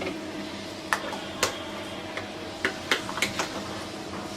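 A metal spoon clinking against a container in a series of irregular sharp clinks while freshly blended spice paste is handled, over a steady low hum.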